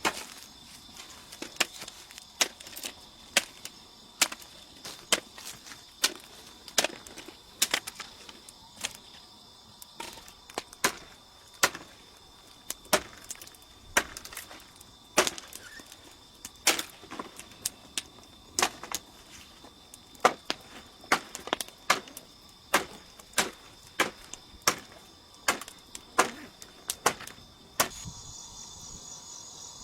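Steady rhythmic chopping, a blade striking wood about once every second or less, some forty sharp blows that stop shortly before the end. Insects drone steadily at a high pitch throughout.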